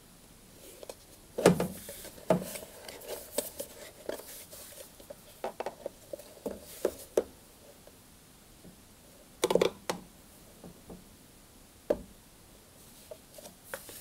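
Scattered plastic clicks, knocks and scraping as the clips of a tumble dryer's plastic pump housing are prised loose with a screwdriver and the case is worked open by hand. The loudest knocks come about a second and a half in and again near ten seconds.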